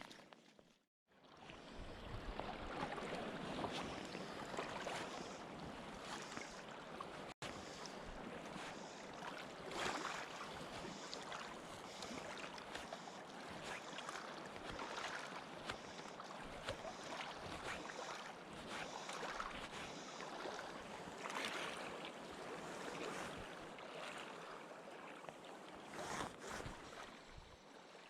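Outdoor water noise, like a river flowing, with wind on the microphone: an even, fluctuating rush that drops out briefly about a second in and again near seven seconds.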